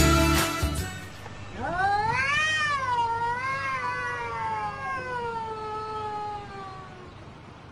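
A cat gives one long, drawn-out yowl that rises, wavers and slowly sinks, the caterwaul of a cat squaring off against another. Background music cuts off just before it.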